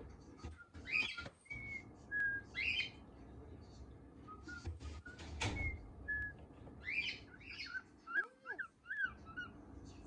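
Young cockatiel chirping and singing a string of short whistled notes, with a quick run of rising-and-falling notes near the end.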